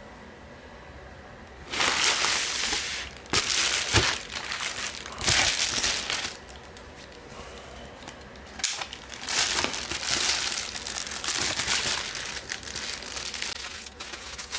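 Shipping packaging being handled and opened: crinkling and crumpling in three separate bursts over the first six seconds, then near-continuous rustling from about nine seconds in.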